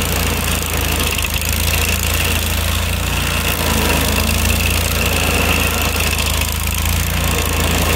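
Vermeer SC252 stump grinder running steadily under load, its engine working as the cutter wheel grinds into a tree stump and throws wood chips.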